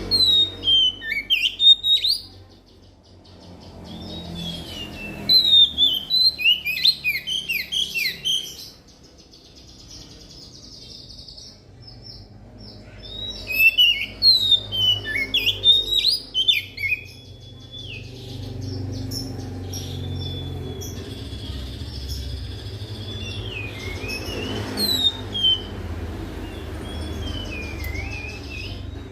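Oriental magpie-robin (kacer) singing in loud bursts of rapid, varied whistles and chattering notes, three main phrases with softer notes between them, over a steady low hum.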